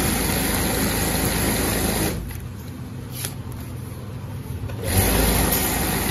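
Industrial sewing machine stitching a seam in bag fabric, running steadily, stopping about two seconds in and starting up again about five seconds in.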